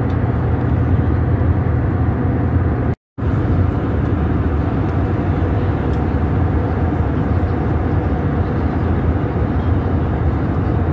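Steady cabin drone of an Airbus A320neo in flight: engine hum and airflow noise with a strong low rumble. The audio cuts out completely for a moment about three seconds in.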